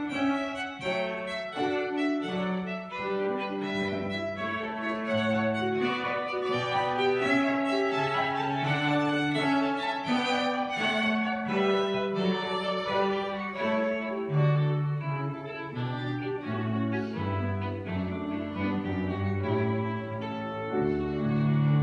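Two violins, a cello and a piano playing chamber music together, the cello's low sustained notes under the violin melody.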